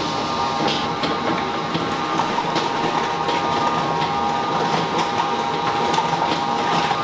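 Steady machine hum with a constant whine, with faint taps and rattles from a large metal flour sieve being shaken.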